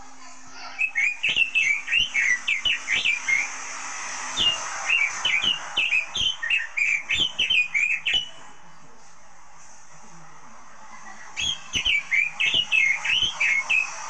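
Red-billed leiothrix (Pekin robin) singing in three bouts of quick warbled whistles, each note rising and falling. The bouts are separated by a short pause and then a longer one of about three seconds.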